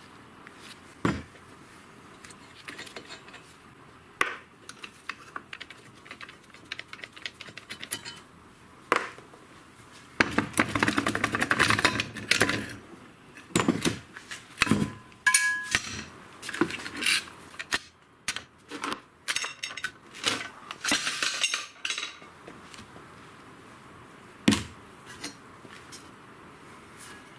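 Rusty steel drum brake parts clinking and clanking as the assembly is taken apart by hand on a workbench: scattered knocks and clicks, a longer stretch of rattling about halfway through, and a brief metallic ring just after it.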